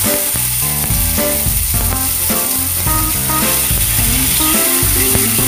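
Chicken wings sizzling as they pan-fry in a little oil, with background music playing over it.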